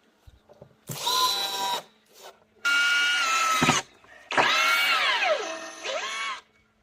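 Power drill run in three short bursts, its motor whining at a steady pitch. In the last and longest burst the pitch sags steeply as it bogs down under load, typical of driving a screw into wood, then picks back up before it stops.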